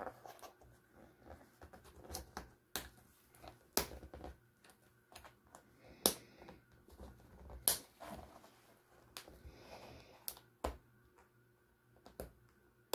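Picture frame's metal backing clips being pushed down into place against the backboard: about ten sharp, irregular clicks over several seconds.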